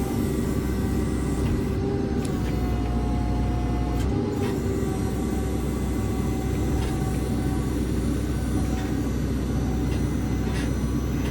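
Diesel engine of a JCB 3CX backhoe loader running steadily, with a few sharp knocks and a slight change in engine pitch about four seconds in.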